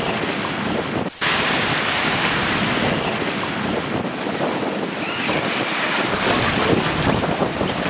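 Wind-driven waves surging and splashing against a small moored boat and washing into it, with strong wind buffeting the microphone. The sound breaks off briefly about a second in.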